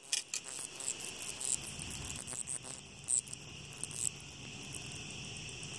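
Crickets trilling steadily, with short scratchy clicks and rustles from gloved hands working a nylon net.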